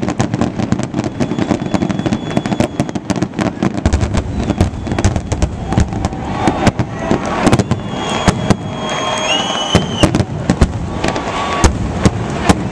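Fireworks display: rapid, overlapping bangs and crackling, with a deeper rumble from about four seconds in and a few whistling glides about two-thirds of the way through.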